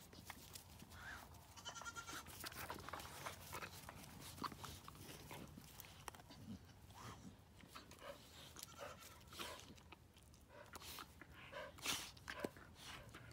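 Two puppies play-wrestling on grass: quiet scuffling and pawing with small brief growls and yips. A goat bleats once, briefly, about two seconds in.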